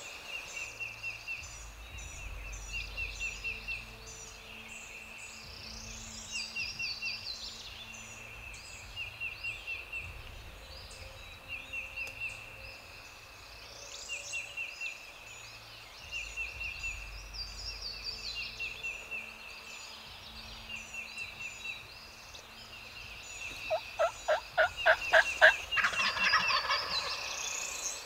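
Wild turkeys calling, over songbirds singing, with short trilled calls repeating every couple of seconds. The loudest sound is a rapid series of about ten sharp turkey notes about 24 seconds in.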